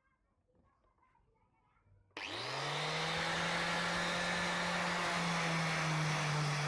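Electric power tool switched on about two seconds in: its motor spins up within a fraction of a second, then runs steadily and loudly. Before that, only faint small handling sounds.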